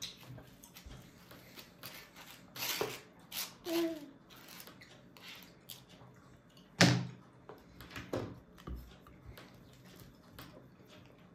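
Babies feeding themselves at a high-chair tray: scattered taps and knocks, a short child's vocal sound about four seconds in, and a sharp, louder knock about seven seconds in.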